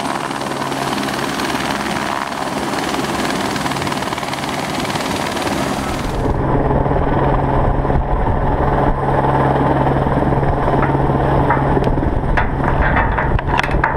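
Helicopter running in flight, a steady, dense rotor and turbine noise. About six seconds in it becomes louder and deeper, with a steady low drone, as the helicopter hovers overhead.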